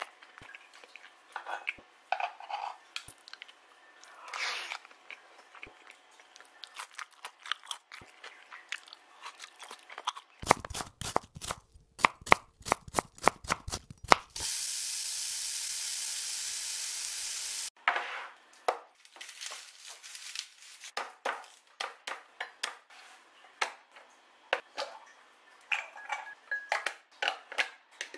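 Crunching and clicking of a meal of crunchy garlic rice being eaten with spoon and fork for about ten seconds. Then comes a quick run of sharp clicks, a steady hiss for about three seconds, and more scattered clicks and crunches.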